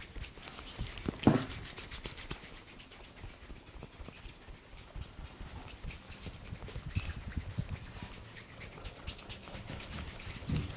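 Hands working a head massage: fingers rubbing and tapping through the hair and on the scalp, close to the microphone, with one louder thud about a second in.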